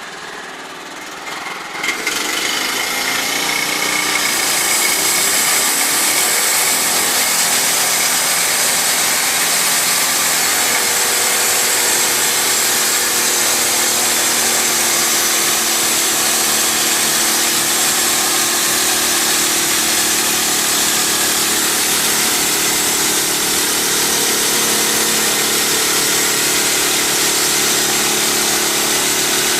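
A Wood-Mizer LT15 band sawmill's 13-horsepower Kohler engine starts about two seconds in, picks up speed and then runs steadily under load as the band blade saws through a log.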